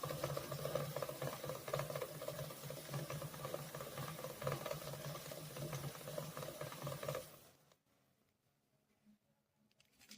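Aerosol can of AMSOIL chain lube spraying onto a motorcycle chain in one long, fluttering hiss that stops about seven and a half seconds in.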